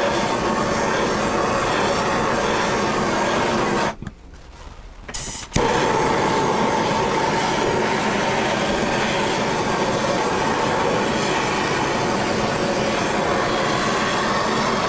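Gas blowtorch flame running with a steady roaring hiss while charring pine. Around four seconds in the flame cuts out for about a second and a half, then comes back with a sharp click.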